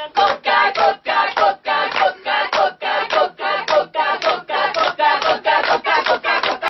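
A group of young men and women singing together while clapping their hands in a steady rhythm, about three claps a second.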